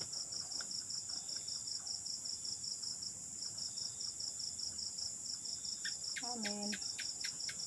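Night insects in the forest chirping: a fast steady pulse of about nine chirps a second over a continuous high-pitched buzz.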